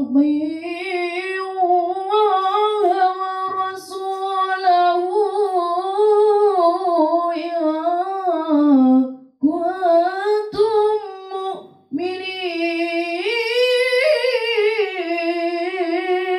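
A boy's voice chanting Quranic recitation in the melodic tilawah style, drawing out long ornamented notes. He takes short breaths about nine and twelve seconds in, and the last phrase climbs to a higher note.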